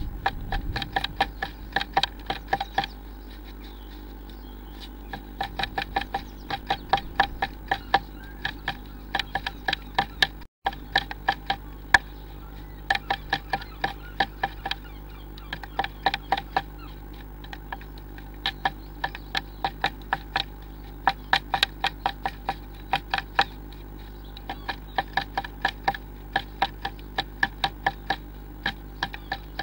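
Blue tit pecking at the wooden inside of the nest box: runs of rapid sharp taps, about seven a second, lasting a few seconds each with short pauses, over a steady low electrical hum.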